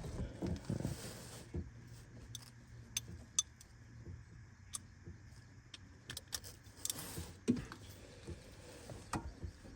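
Scattered light metallic clicks and clinks, irregularly spaced, from metal parts being handled while the oil drain bolt is threaded back into the drain hole by hand.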